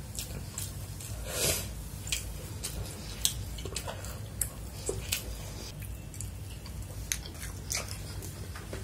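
Close-miked chewing of fried rice, with scattered short wet mouth clicks and smacks.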